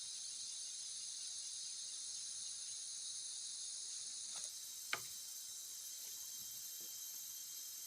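Steady high-pitched chorus of insects. About halfway through, the chorus changes: one high tone stops and another, higher one begins. A single sharp click sounds about five seconds in.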